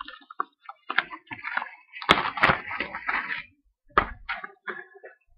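A cardboard trading-card box being handled: rustling and scraping, with a few sharp knocks, the loudest about two seconds in and again at four seconds.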